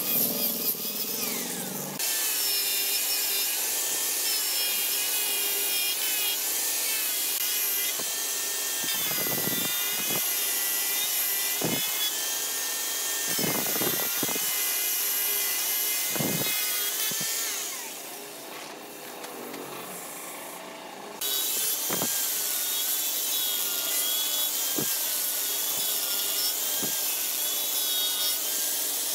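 Handheld angle grinder with a sanding disc sanding a carved wooden vase. The motor gives a high whine that wavers in pitch as the disc is pressed into the wood, over the scratchy hiss of abrasive on wood. It drops quieter for a few seconds past the middle, then picks up again.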